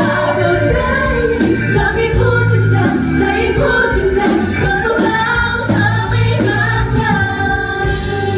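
Live Thai pop song with female voices singing over a band with a beat, closing on long held notes near the end.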